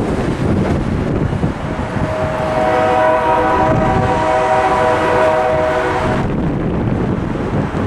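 Diesel locomotive's multi-note air horn blowing a long chord for the grade crossing. It swells in about two seconds in and cuts off about six seconds in. Road traffic passes underneath.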